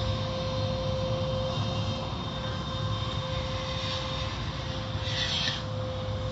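Automatic tunnel car wash heard from inside the car: a steady machine drone with a constant hum and low rumble as water runs over the windshield, and a short hiss of spray about five seconds in.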